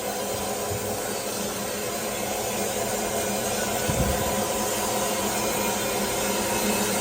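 Steady hum and hiss of lapidary shop machinery running, with a soft low thump about four seconds in.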